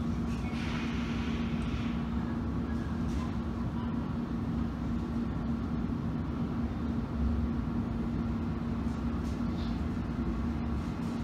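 Interior of a London Underground S Stock train running: a steady low rumble of wheels on rail with a constant hum. A short hiss comes in near the start.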